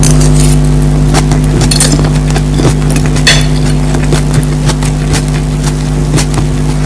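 Close-miked eating: chewing with many short, sharp mouth clicks and a few utensil clinks. Under it runs a loud, steady low electrical hum.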